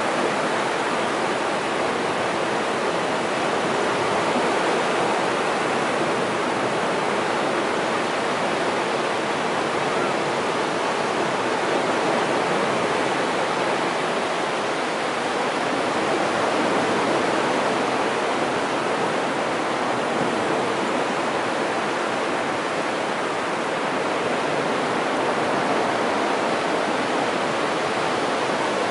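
Surf washing onto a flat sandy beach: a steady rush of waves that swells and eases slowly every several seconds.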